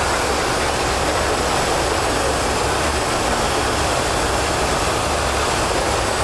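Small airplane's engine and propeller noise heard from inside the cockpit: a steady, loud drone with a deep low hum underneath.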